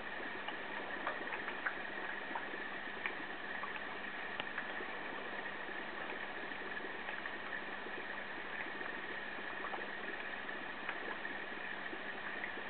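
Steady hiss with a faint constant high whine and a low hum, broken by scattered soft ticks.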